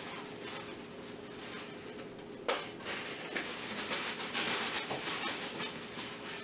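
Quiet kitchen handling sounds: light rustling and small clatters, with one sharp click about two and a half seconds in, over a steady low hum.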